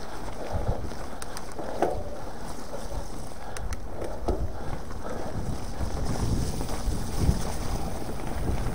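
Wind buffeting an action camera's microphone on a moving mountain bike, a steady rushing noise with a low rumble and a few faint knocks from the bike on the trail.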